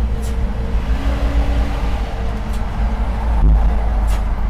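Car interior noise while driving in traffic: a steady low engine and road rumble with a faint constant hum.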